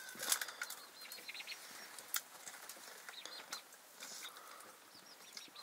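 Small birds chirping in short, quick high notes near the start and again near the end, over scattered sharp clicks and crackles.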